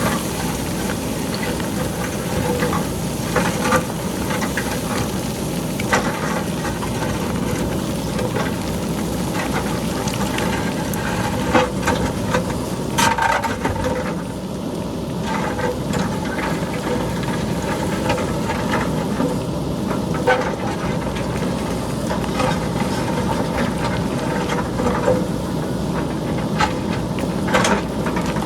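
A JCB backhoe loader's diesel engine running steadily as it digs into a rocky hillside, with boulders and pebbles clattering and knocking as they roll down the slope.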